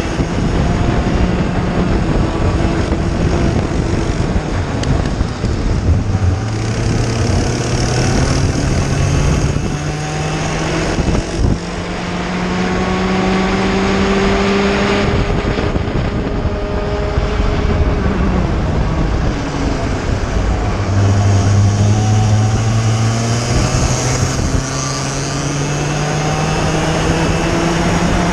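IAME Cadet kart's 60cc two-stroke engine at racing speed, heard close up from onboard. Its note climbs slowly along the straights and drops sharply under braking for the corners, several times over.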